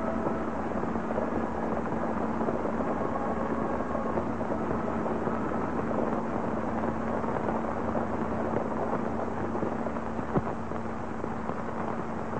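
Hooves of galloping horses as a dense, steady rumble of close-set knocks, heard through the hiss and steady low hum of an old film soundtrack.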